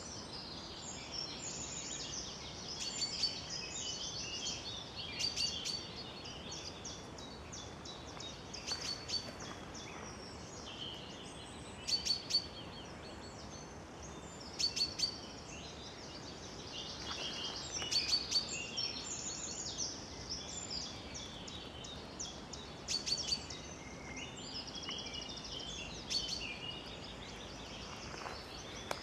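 Several songbirds singing at once in a spring woodland chorus, with short repeated phrases and rapid trills overlapping, over a faint steady background noise.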